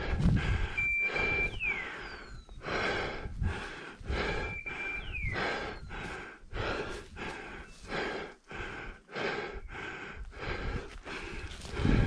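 Heavy rhythmic breathing and rustling movement through undergrowth, pulsing about two to three times a second. Twice there is a short high whistle-like tone that ends in a quick falling note.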